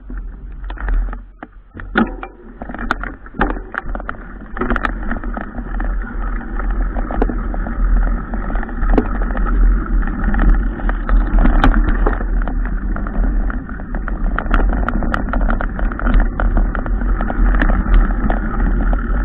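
Riding noise of a mountain bike on a bumpy dirt track, heard through a bike-mounted action camera: steady wind rumble on the microphone with frequent sharp rattles and knocks from the bike over the ground, building over the first few seconds as the bike picks up speed.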